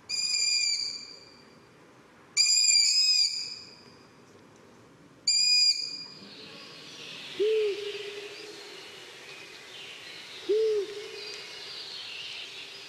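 Long-eared owl chick's begging calls: three loud, drawn-out squeaky screeches about two and a half seconds apart. They are followed by two short low owl hoots a few seconds apart over a faint hiss.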